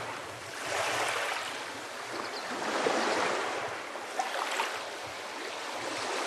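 Sea waves washing in and drawing back, the surf swelling and fading every couple of seconds, with a few brief faint bird chirps.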